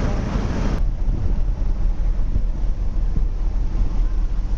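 Wind buffeting the microphone aboard a ship under way, a steady low rumble with a hiss above it; the hiss drops off abruptly about a second in.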